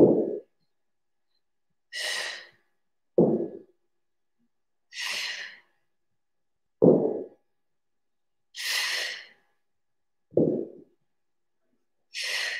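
A woman's heavy, regular breathing while straining in a plank, one breath about every one and a half to two seconds. Short, lower puffs alternate with longer hissing breaths.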